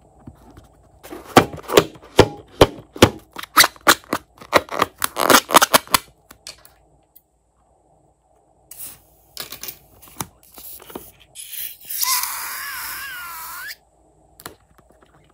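A quick run of sharp clicks and taps lasting several seconds, a few more scattered ones, then a high wavering squeal of air let out through a stretched balloon neck for about two seconds, cutting off suddenly.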